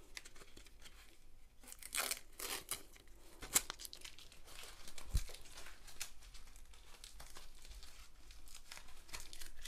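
Tape being peeled off the plastic sleeve around a rolled diamond-painting canvas, with the sleeve crinkling as the roll is turned in the hands. Irregular rustling, with a sharp click about three and a half seconds in and a dull knock a little later.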